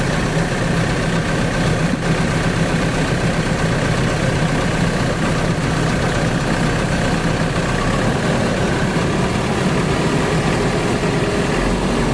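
Excavator's diesel engine running steadily at a constant speed, its note shifting slightly near the end.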